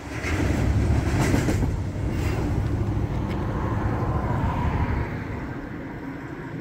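The last cars of a double-stack container freight train rolling past, a heavy rumble of wheels and cars that dies down about five seconds in as the end of the train clears.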